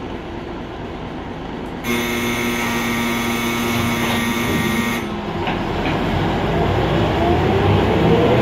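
Inside an Ikarus 280.49 bus: a steady electric warning buzzer sounds for about three seconds, typical of the door-closing signal at a stop. Then the diesel engine revs up with rising pitch as the bus pulls away.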